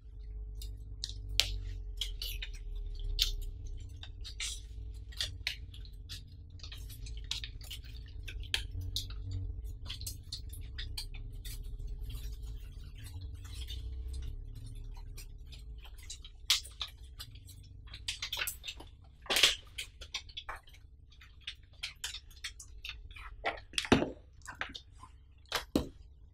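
Irregular small clicks and ticks over a low rumble and a faint steady hum. The rumble drops away about halfway, and a few sharper, louder clicks come near the end.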